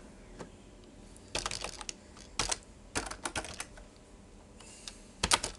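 Computer keyboard typing: keystrokes in several short quick bursts with pauses between, and a louder pair of clicks near the end.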